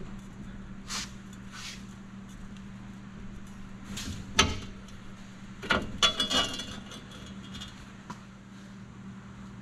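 Metal suspension hardware being handled by hand, clinking and knocking in several short clanks. The loudest come about four and a half seconds in and in a quick cluster around six seconds, with a brief metallic ring. A steady low hum runs underneath.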